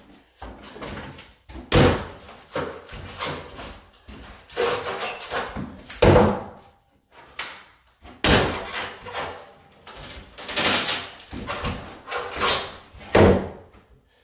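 Irregular loud bangs and slams, roughly one every second or two, with scraping noise between them: demolition work on a cabinet.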